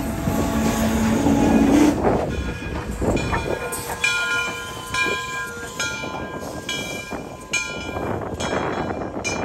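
A steam locomotive whistle blows a steady chord for about two seconds. Then come passenger-car wheels squealing on the rails in thin high tones, with irregular clacks over rail joints, as the train rolls past.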